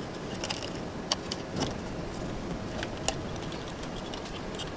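Bundled hook-up wires and a ribbon cable being pushed and handled inside an electronics housing, giving light rustles and several irregular small clicks as wires and parts knock against the box and its wall.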